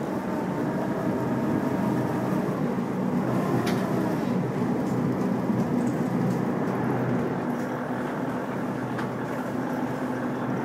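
Glass-bottom tour boat's engine running steadily, a low hum heard from inside the hull.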